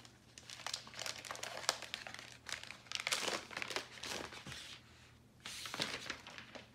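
Thin frosted plastic protective wrap being pulled off a new tablet, crinkling in several irregular bursts, loudest about three seconds in and again near the end.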